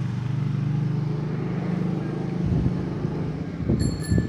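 A motor vehicle engine running steadily at a low pitch, fading after about two and a half seconds. A few knocks follow, then a high metallic ringing struck a few times near the end.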